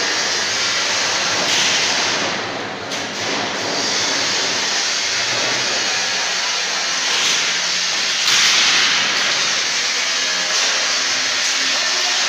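Steady loud hissing rush of noise, swelling briefly a few times.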